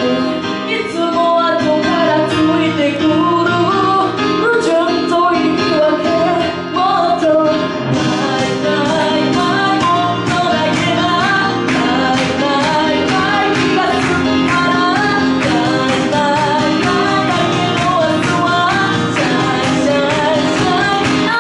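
A woman singing live into a microphone over amplified backing music. About eight seconds in, a steady beat of sharp ticks comes in under the voice.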